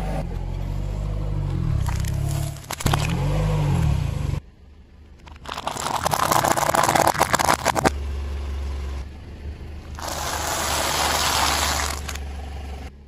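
Car engine running low as the car rolls slowly. Then two spells of dense crackling and crunching, about two seconds each, as a car tyre crushes brittle snack food.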